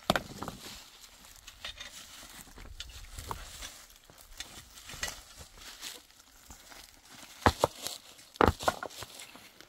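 Hoes chopping and scraping into dry, stony soil, with stones and clods rattling. It comes as scattered scrapes and knocks, the sharpest strikes falling in the last few seconds.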